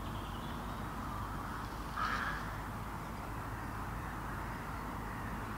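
Steady outdoor background hiss, with one short bird call about two seconds in.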